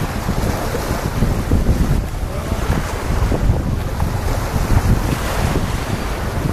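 Wind buffeting the microphone with a heavy, fluttering rumble, over the steady wash of small sea waves breaking on a sandy beach.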